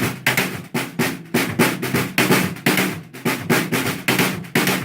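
Drum kit playing a shuffle groove in a steady, even stream of strokes, with the snare accents played as rim shots, stick striking the rim and the drum head together.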